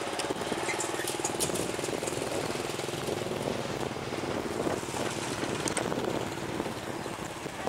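Passenger train coaches rolling away along the track: a steady rumble and clatter of wheels on rail with a few sharp clicks, getting a little quieter near the end.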